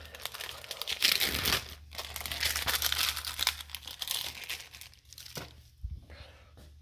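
Clear plastic wrapper of an individually wrapped cheese slice being peeled open and crinkled, in quick crackling bursts that die down after about four and a half seconds, followed by a couple of soft thumps. A low steady hum runs underneath.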